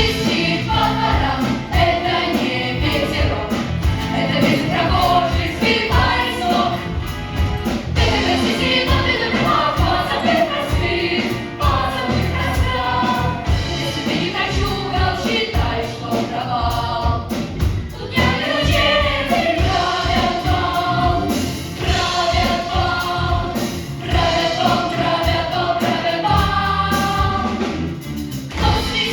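Musical theatre number: a chorus of voices singing together over band accompaniment with a steady beat.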